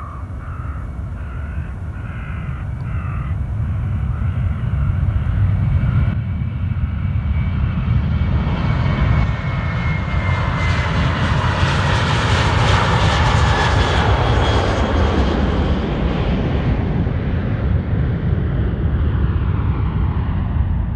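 Jet airliner taking off at full thrust: the engine roar builds as it rolls down the runway, peaks with a high falling whine as it passes and lifts off about midway, then eases off slowly as it climbs away.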